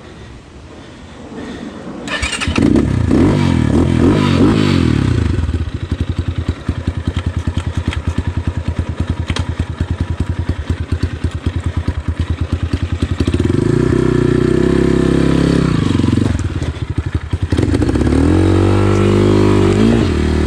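GPX FSE 250E enduro dirt bike engine catching about two seconds in and revving up. It settles into a rapid chugging idle, then is revved hard twice near the end, pitch climbing and dropping, as the bike is worked free of mud.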